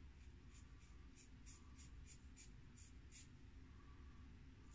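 Faint, short scraping strokes of a 5/8 Geo Wostenholm straight razor cutting through lathered stubble, about two to three strokes a second.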